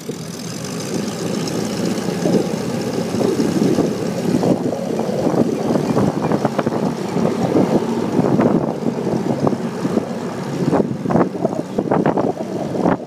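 Airboat engine and propeller running as the boat travels across the water, a steady rushing drone. Wind buffets the microphone in gusts near the end.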